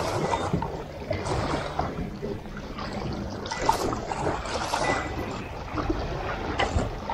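Water lapping and splashing, uneven and noisy, with a few small clicks.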